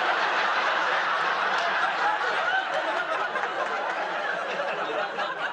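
Sitcom studio audience laughing: a crowd's laughter that starts all at once after a punchline and slowly dies down.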